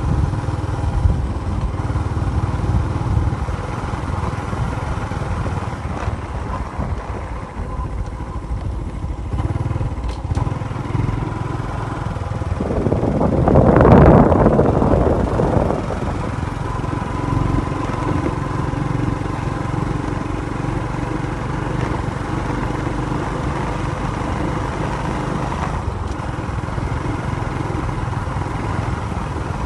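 Steady rumble of engines and road traffic. About halfway through, one vehicle passes close, swelling loud and then fading.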